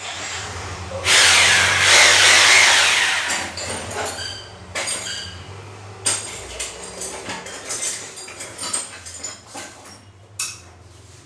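A power tool runs loudly for about two and a half seconds with a low hum underneath, followed by scattered knocks and clicks of tool work.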